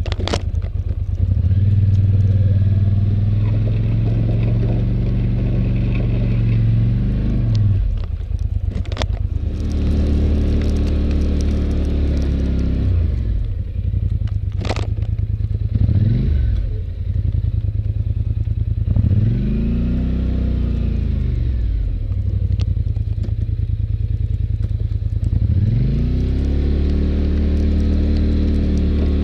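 Polaris Sportsman 850 ATV's parallel-twin engine running under the load of plowing snow, its pitch rising and falling several times as it speeds up and slows down. Two sharp knocks stand out partway through.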